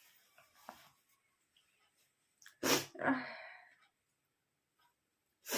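A person sneezing: one sharp sneeze about two and a half seconds in, followed by a breathy exhale, and another short sneeze near the end. The sneezes are forced, brought on by tickling the nose with rolled-up paper.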